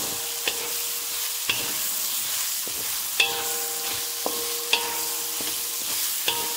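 Beef and cauliflower sizzling in a wok as a wooden spatula stirs them, with about six uneven knocks of the spatula against the pan; the loudest knock comes about three seconds in. The wok rings briefly after the knocks.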